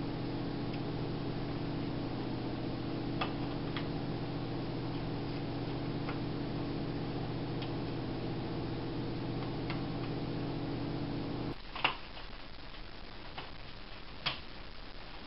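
Scattered light clicks and taps of a small jeweler screwdriver and tiny screws against a laptop's plastic case, over a steady low hum that cuts off abruptly about three-quarters of the way through. A louder click comes just as the hum stops.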